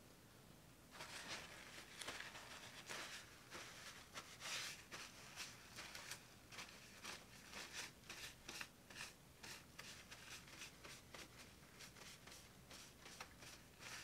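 Faint, irregular rustling and light clicking of something being handled, several sounds a second, starting about a second in.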